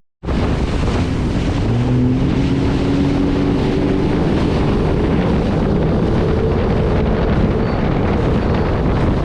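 Jet ski running at speed, its engine note almost buried under heavy wind buffeting the microphone and the rush of water. The sound cuts in abruptly just after the start.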